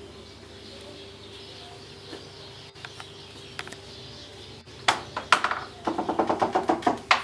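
Wooden plank door with a black iron thumb latch being opened: two sharp metal clacks of the latch about five seconds in, then a rapid run of clicks, about ten a second, as the door swings on its hinges.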